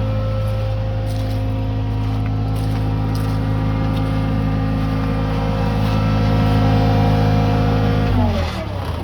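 Bobcat 742B skid steer engine running at a steady speed, then shut off about eight seconds in, its pitch falling as it winds down to a stop.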